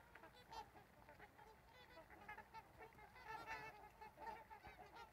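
A flock of trumpeter swans honking faintly, with many short horn-like calls overlapping. The calls are busiest about three and a half seconds in.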